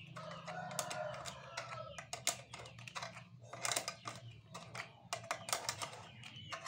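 Irregular small metallic clicks and taps as a hex key works the handlebar stem bolt on a child's balance bike, tightening it.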